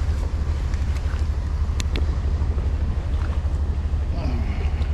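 Wind buffeting the microphone, a steady low rumble, with two sharp clicks close together about two seconds in.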